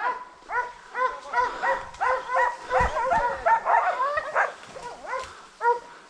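A pack of hunting dogs baying, several voices overlapping in rapid arched yelps, thickest in the middle and thinning near the end: the dogs are holding a wild boar at bay.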